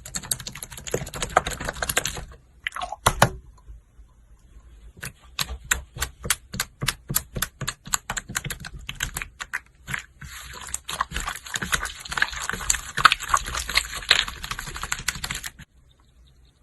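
Slime being squeezed and poked by hand, giving sharp clicking pops at about three or four a second, with stretches of dense crackling at the start and from about two-thirds of the way in.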